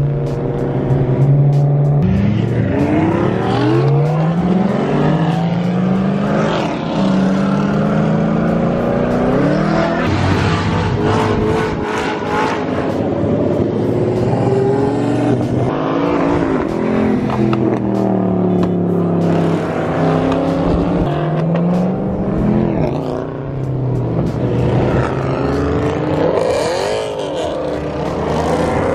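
Sports car engines under hard acceleration. Their pitch climbs and drops back at each gear change, several times over, with a stretch of slowing down about two-thirds of the way through.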